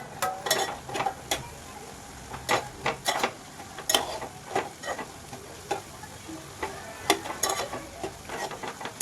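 A spoon stirring and scraping a pan of frying dried shrimp (javla), in irregular strokes about once or twice a second over a steady sizzle.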